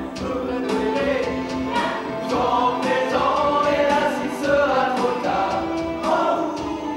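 Men's chorus singing a French musical-comedy number together, with long held notes.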